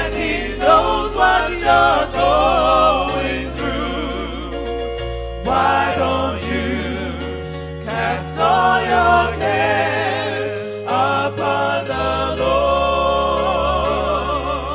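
Gospel music: singing with a wavering vibrato over sustained accompanying chords and a bass line that steps to a new note every second or two.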